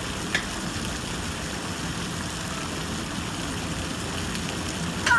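A steady low rumble with a hiss of water, as a child runs splashing through a shallow splash pool; a child's short high call starts right at the end.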